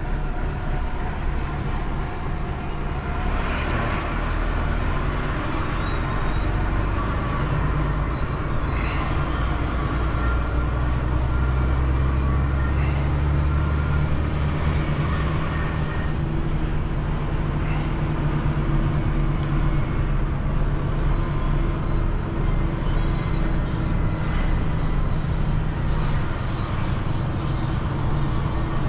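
Heavy recovery truck's diesel engine running under load while towing a car transporter, with steady road noise. The engine note grows louder a few seconds in and then holds steady.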